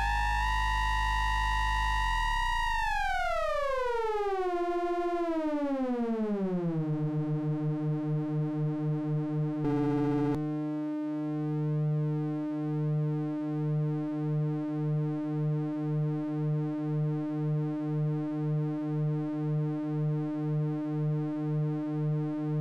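Synthesizer tone from a breadboarded precision-rectifier filter folding the sine wave of a Doepfer A-143-9 quadrature LFO: it holds a high buzzy pitch, glides down to a low pitch over about four seconds, then holds there, pulsing about one and a half times a second as the CV LFO sweeps the folding. A short burst of noise sounds about ten seconds in.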